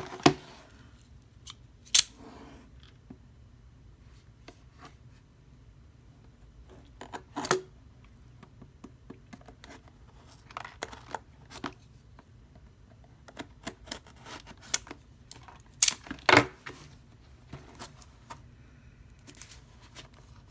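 Product box being opened by hand: irregular clicks, snaps and rustles of cardboard and packaging, with a pair of louder snaps about three-quarters of the way through.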